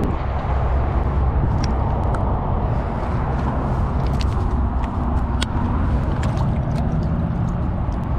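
Steady low rumble of wind buffeting the camera microphone, with scattered light clicks and ticks as a caught largemouth bass is handled and released into the water.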